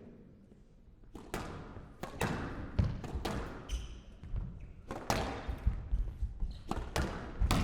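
Squash rally: sharp cracks of racket strings hitting the ball and the ball striking the court walls, coming irregularly about one or two a second.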